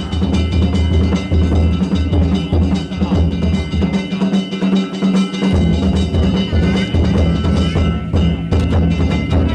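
Danjiri float's festival music (narimono): a big taiko drum beating in quick repeated strokes with ringing hand gongs over it. The drum drops out for a moment about four seconds in, then picks up again.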